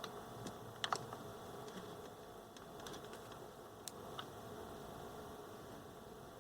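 A few faint, light clicks and taps of small radio parts being handled and fitted back into place during reassembly, over a low steady background hum.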